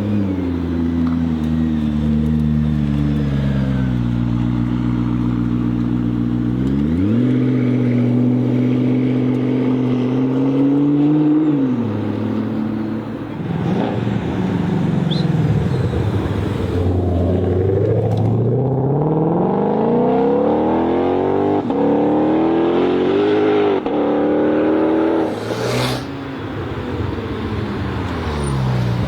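Supercar engines revving and accelerating. A steady engine note jumps up in pitch about seven seconds in, holds, and drops back near twelve seconds, followed by a run of rising and falling revs.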